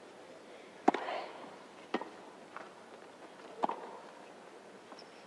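Tennis ball struck back and forth by rackets in a baseline rally: three sharp pops about a second apart, with fainter knocks between them.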